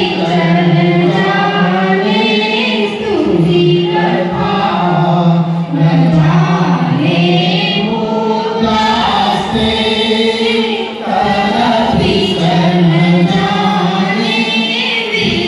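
Devotional shlokas chanted in a sung melody into a microphone and played through a loudspeaker.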